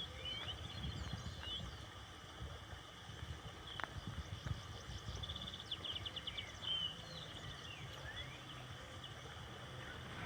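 Several wild birds singing and calling, with short whistled notes throughout and a fast trill of repeated notes about five seconds in, over a low rumble.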